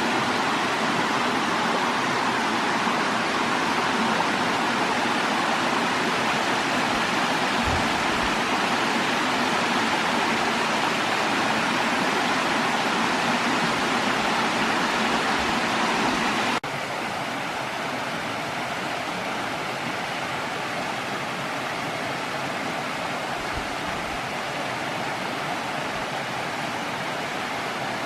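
Creek cascade, water rushing steadily over rock. About two-thirds of the way through it cuts suddenly to a slightly quieter rush of water.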